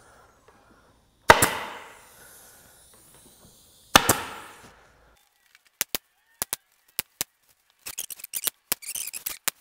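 Pneumatic upholstery stapler firing twice, about a second in and again about four seconds in: each a sharp crack with a short fading tail. Then a scatter of lighter clicks and rustling as the fabric is handled.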